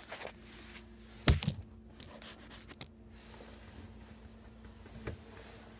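Handling knocks as a camera is set down inside a sink cabinet: one sharp, loud thud about a second in, a few light knocks, and a softer thud near the end, over a faint steady hum.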